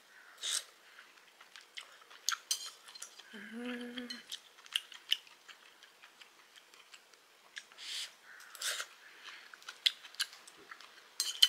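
Table eating sounds: utensils clicking and tapping against dishes, with chewing of chewy pork intestines. A short hummed 'mm' comes about three and a half seconds in.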